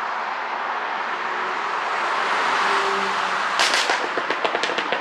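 Porsche Cayenne Coupe's 3.0-litre turbocharged V6 running through its exhaust, growing slightly louder, then, about three and a half seconds in, a rapid string of sharp exhaust pops and crackles lasting about a second and a half: the overrun pops added by a 'pop sound' ECU tune.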